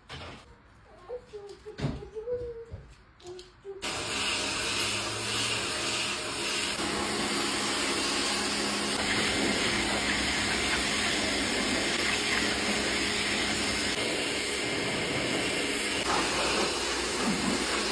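A few knocks, then about four seconds in a high-pressure water spray starts suddenly and holds steady as a loud hiss, as washing machine parts are hosed down with a pressure washer.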